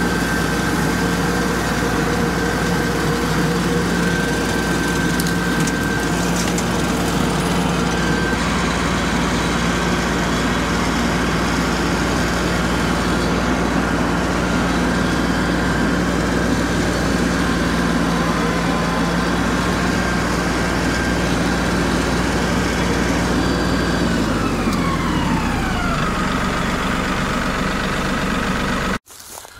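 LS XG3140 compact tractor's diesel engine running steadily while pulling and driving a bush hog. About 24 seconds in, the engine speed falls over a couple of seconds, and the sound cuts off suddenly near the end.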